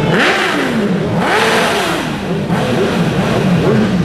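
Several racing motorcycles passing at speed, their engine pitch rising and falling in arcs as they go by. The engines are loud throughout.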